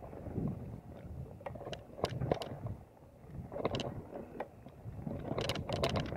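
Mountain bike rolling fast down a dirt forest trail: wind buffets the microphone over the rumble of the tyres on the ground. Groups of sharp rattles and clicks from the bike jolting over bumps come about two seconds in, again near four seconds, and thickest near the end.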